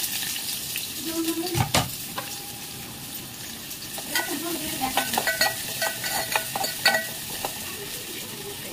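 Food frying and sizzling in oil in a pan while a utensil stirs it, with repeated knocks and short metallic clinks against the pan, thickest from about four to seven seconds in.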